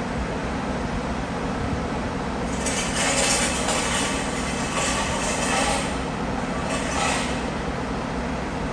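A heavy machine's engine running steadily, with a loud hissing, rushing noise for about three seconds starting a couple of seconds in, and again briefly near the end.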